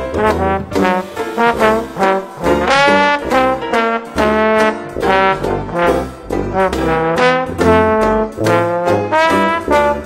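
Traditional New Orleans-style jazz with brass instruments playing the melody over a steady bass beat.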